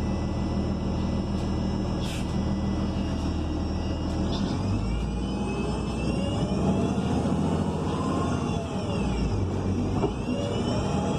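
Bus engine and transmission heard from inside: the Cummins Westport L9N natural-gas engine with Voith D864.6 automatic transmission running steadily. About halfway through a whine climbs in pitch as the bus pulls away, then falls off, and it rises and falls again near the end.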